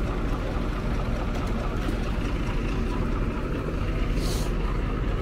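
Steady low rumble of motor traffic with engines running, and a short hiss about four seconds in.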